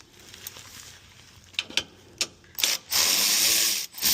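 A few light metal clicks, then a power tool whirring as it spins out a small bolt of the underbody cover: one run of about a second, about three seconds in, and another that begins near the end.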